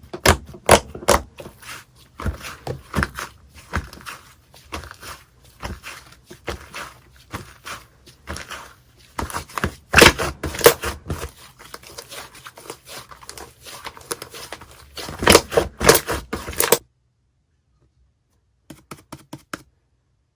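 Slime being squeezed and poked by hand: rapid sticky clicks, pops and crackles that stop abruptly about seventeen seconds in, with a few short crackles again near the end.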